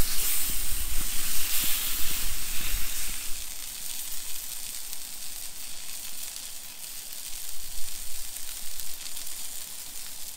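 Sausages sizzling as they fry: a steady hiss that is loudest for the first few seconds, then eases to a quieter sizzle.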